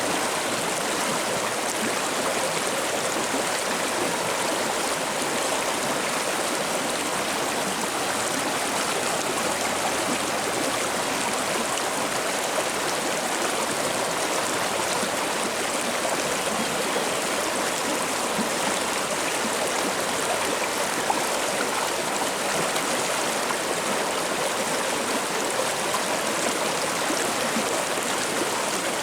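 Stream water rushing and splashing over rocks, a steady, even burble.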